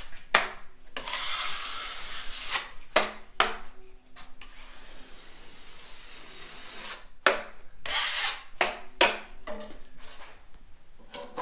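Drywall knife scraping along a corner bead in a series of strokes, some long and some short, squeezing excess joint compound out from under the bead.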